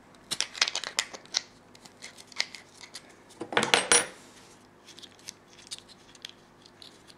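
Small metal clicks and clinks of a little wrench and the pressure-restrictor pin being worked and handled against a camping gas lamp's plastic base, as the pin is taken out. The clicks come in scattered groups, with a louder burst of clinking about three and a half seconds in.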